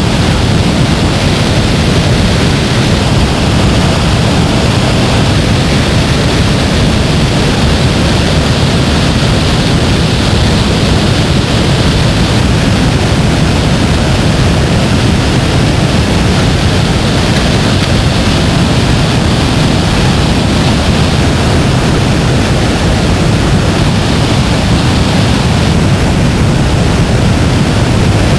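Water spilling over a low dam and running through the rapids below it: a loud, steady rush.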